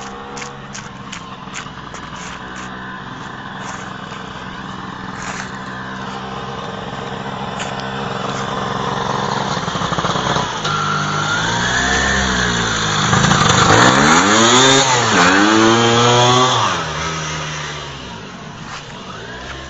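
Two-stroke engine of a Piaggio Ape three-wheeler tuned with a 130 cc Parmakit cylinder kit, revving up and down as it approaches. It is loudest as it passes, about two-thirds of the way through, then fades off.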